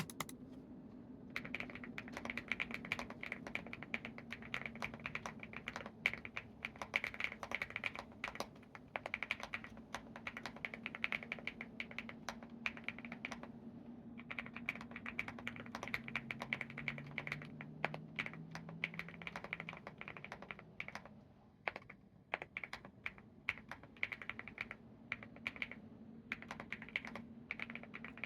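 Steady typing on an Epomaker x Feker Galaxy80 mechanical keyboard with hand-lubed Wuque Studios Aurora switches and KAT Mizu Moonlight keycaps, giving a thocky keystroke sound. The typing comes in quick runs with a short pause about halfway through.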